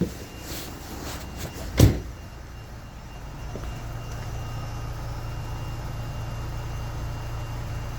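A few sharp knocks, the loudest just under two seconds in, then an Opel Astra H's 1.4 four-cylinder petrol engine running steadily with a low hum.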